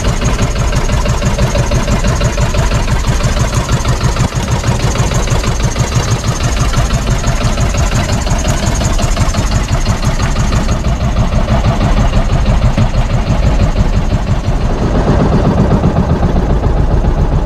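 Small outrigger boat's engine running steadily with a dense, even low rumble; it gets fuller and louder near the end.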